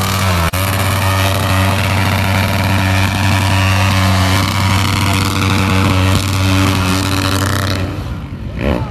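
Dirt bike engine held at steady high revs, one unchanging pitch, then falling away near the end as the bike moves off.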